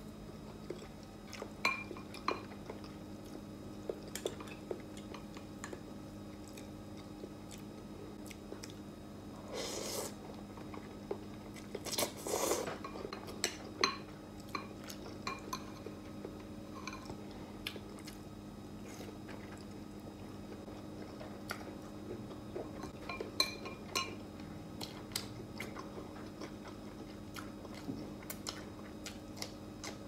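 Close-miked eating of noodle soup and fried tofu: chewing and biting, with many small clicks of a fork and spoon against a glass bowl. Twice, about a third of the way in, there is a longer, louder noise. A faint steady hum runs underneath.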